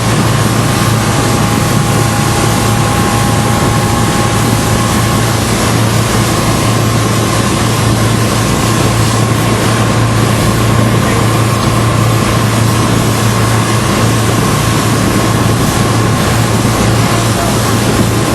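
Motorboat engine running steadily at speed, a constant low drone over an even rushing hiss.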